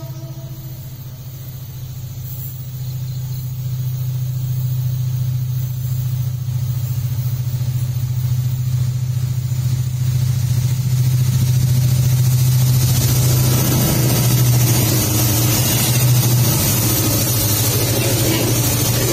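Diesel-electric CC202 locomotives running as they haul a coal train, a steady low drone that grows louder as the train approaches. The tail of a train horn fades out at the very start. From about two-thirds of the way in, the rush and rumble of the train passing close on the rails joins in.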